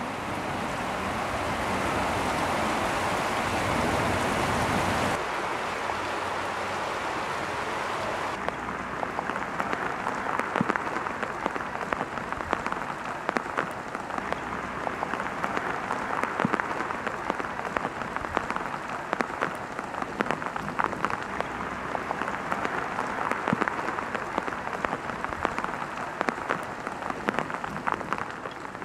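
Heavy rain falling on a tarmac road and pavement: a steady hiss full of small drop impacts. The sound changes abruptly twice, about five and eight seconds in, the later part duller and full of close spattering drops.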